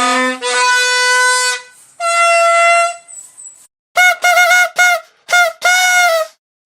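Toy trumpet (torotot noisemaker horn) blown in a series of loud, buzzy toots. The first blasts are lower and longer; from about four seconds in come higher, quicker toots, some wavering in pitch, then a longer held one.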